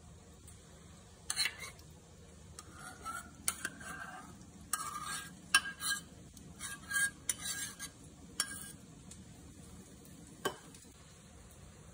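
Metal spoon scraping yogurt out of a stainless-steel measuring cup into a glass bowl: a run of short scrapes and clinks, then a single knock a couple of seconds later.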